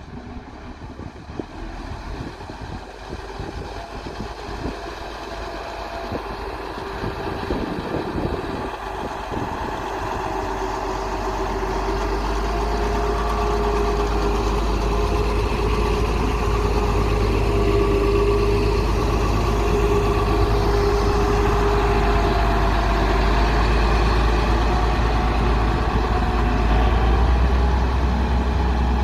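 Motor grader's heavy diesel engine running steadily with a deep rumble, growing louder over the first dozen seconds as it comes closer, then holding steady.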